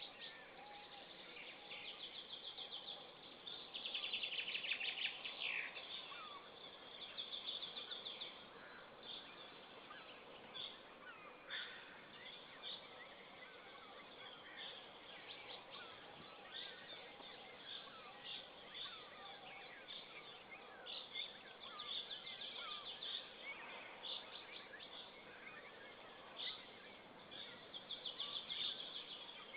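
Several wild birds singing and calling, with repeated high trilled phrases and short chirps overlapping throughout, over a steady background hiss.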